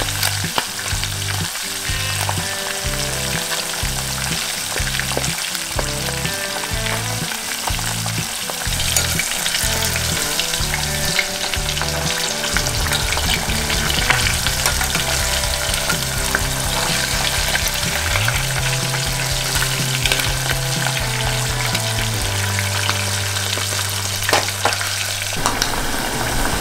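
Breaded perch fillets deep-frying in hot peanut oil in a saucepan: a steady sizzle with scattered crackles.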